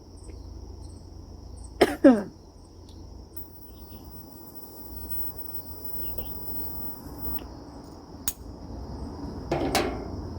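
A person coughing: two harsh coughs in quick succession about two seconds in, and a softer one near the end, over a steady high-pitched tone.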